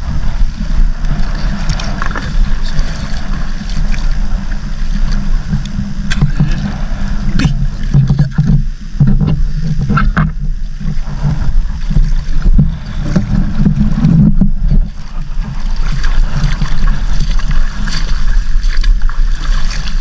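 Water sloshing around legs wading through shallow seawater, over a steady low rumble, with a few short splashes or knocks midway.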